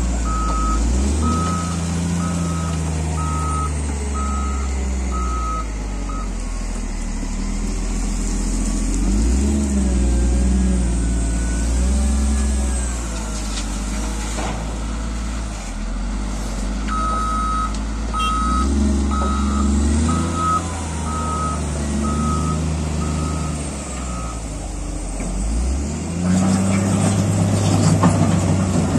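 Caterpillar 140GC motor grader's diesel engine running, its note rising and falling, with the reversing alarm beeping steadily at about three beeps every two seconds in two spells: over the first six seconds and again from a little past the middle. Near the end the engine gets louder.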